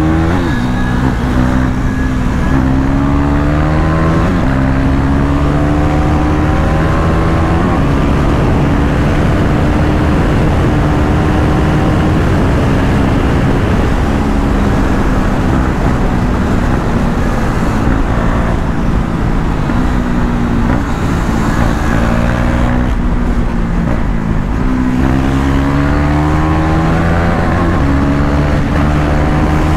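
KTM Duke 390 single-cylinder engine under a hard ride, revving up and shifting up through the gears several times, with steadier stretches between the pulls.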